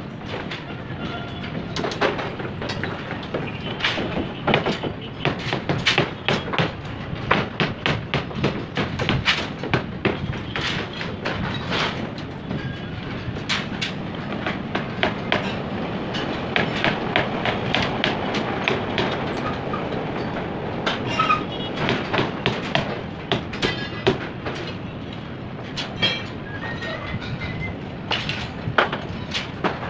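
Construction-site work noise: many sharp, irregular knocks and clanks, several a second, over a steady rumbling background.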